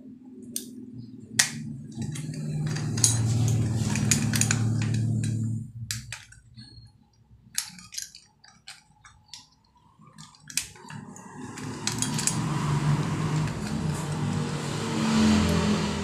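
Small metal clicks and clinks of a brass doorknob assembly being handled and pulled apart by hand. A low, steady hum sits underneath for several seconds at the start and again in the second half.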